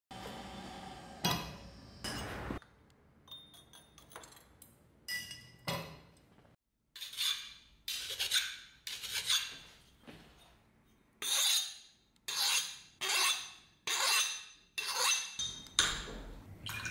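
Hand file worked across the edge of a steel axe head held in a vise, sharpening the bevel: rasping file strokes about one every half second, in two runs with a short pause between. A steady hiss is heard for the first couple of seconds.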